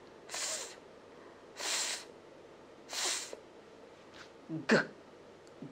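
A woman saying the isolated /f/ sound three times, each a breathy hiss about half a second long with no vowel after it, as a phonics demonstration of the letter f. Near the end come two short voiced /g/ sounds.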